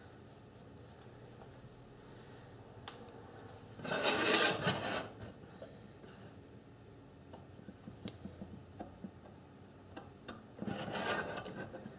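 Carbide-tipped scribe scratching layout lines into a round metal pan along a steel rule: two scraping strokes of about a second each, one about four seconds in and one near the end, with small taps of the tool and rule between them.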